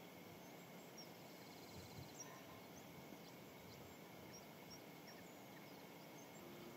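Near silence: faint steady background hiss with scattered faint, short, high-pitched chirps.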